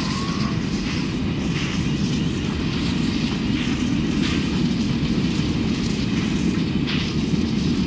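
NSW 59 class 2-8-2 steam locomotive 5910 working a freight train: a steady heavy rumble with sharper exhaust beats recurring at uneven intervals of about a second.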